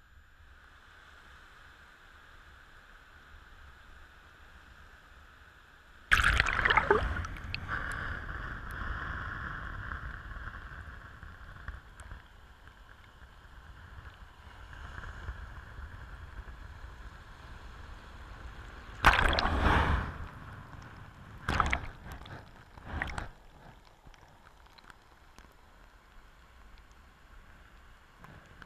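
Shallow sea water washing against and over a camera sitting at the waterline. A sudden loud slosh comes about six seconds in and trails off over several seconds, with three more surges close together near the end and a low gurgling wash between them.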